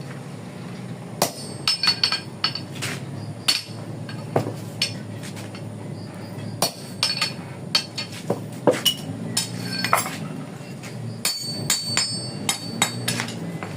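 Hammer blows on iron, irregular sharp strikes with a metallic ring, as holes are punched through the shank of an egrek, a palm-oil harvesting sickle, being forged. A low steady hum runs underneath.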